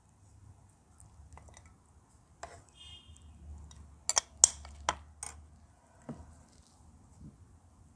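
A serving spoon scraping and clinking against a karahi pan and a plate as the curry is dished out, with a cluster of sharp clinks about four to five seconds in.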